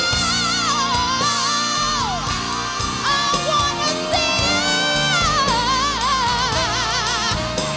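A woman singing lead into a microphone with a live band, sliding through runs and holding notes with a wide, fast vibrato.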